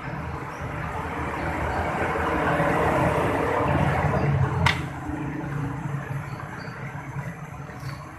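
Car engine running with its piston-type air-conditioning compressor making a rough growl, the 'ngorok' that the uploader puts down, among other causes, to worn balls and metal parts inside the compressor. The noise swells toward the middle, then there is a single sharp click, after which it is a little quieter.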